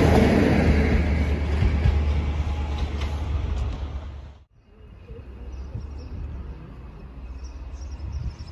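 Class 43 HST power cars 43154 and 43155 running past on the train, a loud steady diesel drone with wheel-and-rail noise, fading away. About halfway through the sound cuts off suddenly, and a much quieter outdoor background with faint bird or insect chirps and a low rumble follows.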